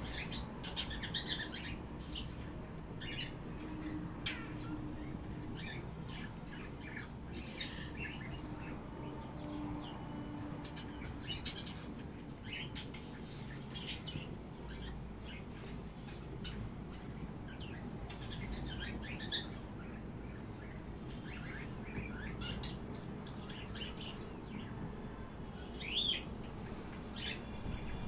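Birds chirping: short, high chirps come irregularly, every second or so, with one louder call about two seconds before the end.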